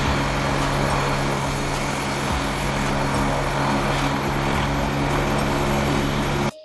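A light twin-turbine helicopter of the AgustaWestland AW109 type running on the ground, its turbines and main rotor making a steady noise with a low hum. The sound cuts off abruptly near the end.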